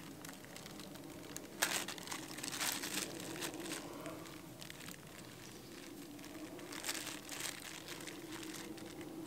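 Dry tinder bundle crinkling and rustling in the hands in a few short bursts, as a small campfire is being started.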